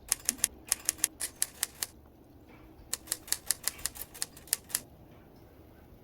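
Rapid, evenly spaced sharp clicks, like keys being typed, in two runs of about two seconds each with a short pause between them.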